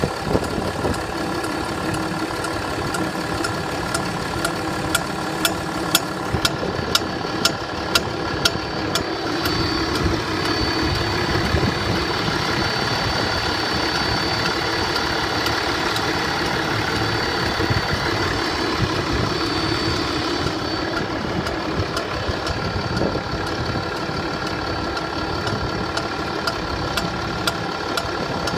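Engine idling with an extraneous knock: a sharp, regular tap about twice a second over the steady running. The tap stands out plainly in the first third and again near the end, while a high thin whine rises above the engine in between.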